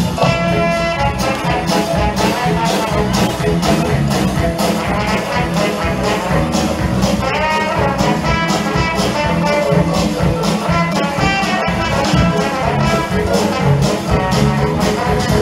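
Upbeat show music with brass and a steady beat, with brass phrases about half a second in and again about seven seconds in.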